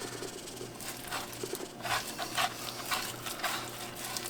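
Faint, irregular small taps and rustles of food being handled and seasoned by hand, over a low steady hum.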